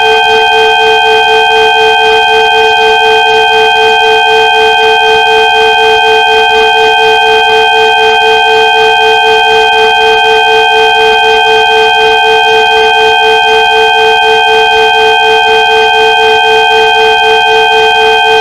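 Synthesized 'healing frequency' sound: several pure electronic tones at different pitches layered into one loud, steady, unchanging chord, with a slight fast wavering.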